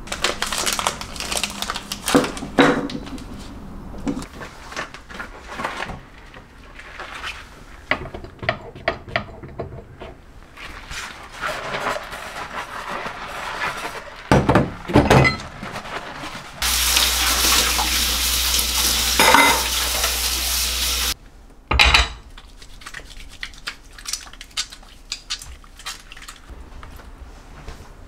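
Ceramic and glass kitchen items clinking and being set down on a sink counter, with a string of light taps and knocks. About sixteen seconds in, the kitchen tap runs for about four seconds and cuts off, followed by a single sharp knock.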